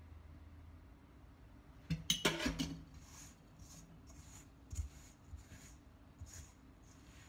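A metal spoon clatters and scrapes against a stainless steel bowl about two seconds in, the loudest sound. Then hands knead a crumbly flour dough in the bowl, with soft rubbing strokes roughly once or twice a second.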